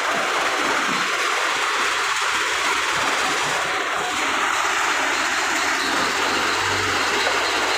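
Steady, loud mechanical rattle and clatter from a stone-crushing plant with its conveyor belts running, with a faint low engine hum from a backhoe loader's diesel coming in near the end.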